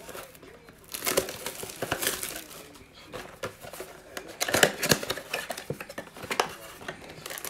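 A 2020 Prizm football blaster box being opened by hand: crinkling wrapper and cardboard rustling, with irregular clicks and louder bursts about a second in and again near the middle as the flap is pulled open and the foil card packs slid out.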